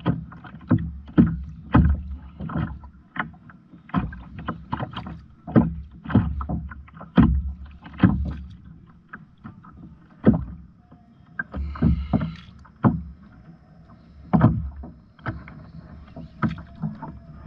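Water slapping against a kayak's hull, with sharp irregular knocks about twice a second over a low rumble.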